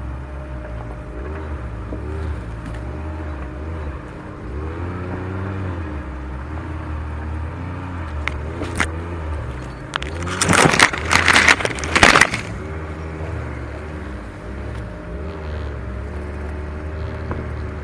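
Off-road vehicle engine running at crawling speed, its revs rising and falling. About ten seconds in, a two-second burst of loud crackling and scraping, typical of dense branches raking along the bodywork.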